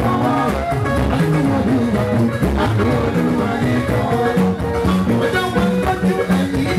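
Band music with plucked guitar lines over a steady drum rhythm.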